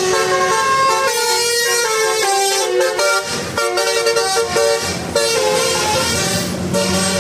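Bus telolet horn: a set of air horns playing a quick tune, one pitched note after another in steps. A lower steady tone joins about five seconds in.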